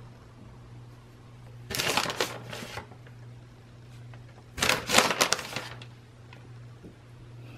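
Plastic bag of shredded cheese crinkling and rustling in two bursts, about two seconds in and again near five seconds, as cheese is pulled out and sprinkled over the food; the second burst is the louder. A steady low hum runs underneath.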